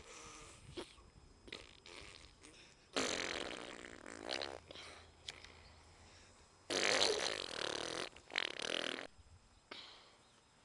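Two long, loud fart noises, one starting suddenly about three seconds in and a second, longer one about seven seconds in.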